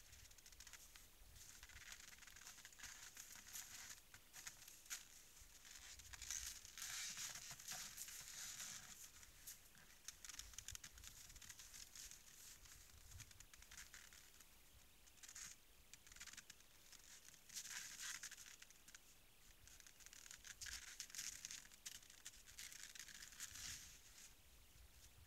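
Faint crunching and scraping from moose feeding and moving about at a snowy salt lick, coming in several bouts of a few seconds each.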